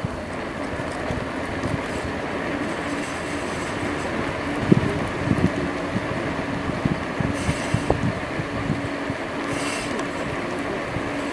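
Riding noise of an A2B Metro electric bike at about 20 mph: steady wind and road rumble with a faint motor hum. A run of knocks and rattles starts about four seconds in, with two short hisses near the end.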